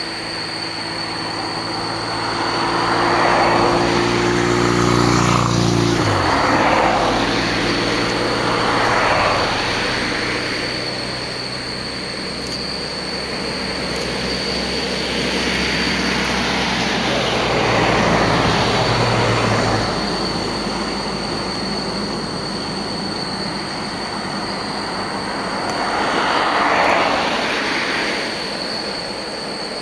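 Turbofan engines of an Embraer 175 and a Boeing 747-400 freighter running at taxi power: a steady high-pitched whine over a rushing noise that swells and fades several times. A low hum drops away about six seconds in.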